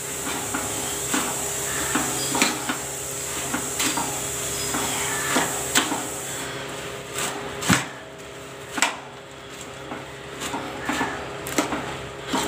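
Long metal spoon stirring puffed paddy rice coated in jaggery syrup in a stainless steel pan, with irregular clinks and scrapes of the spoon against the pan and the rustle of the puffed rice.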